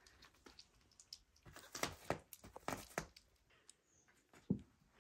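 Small clicks and taps from kittens moving about at their food plate, bunched together in the middle, then a single dull thump near the end.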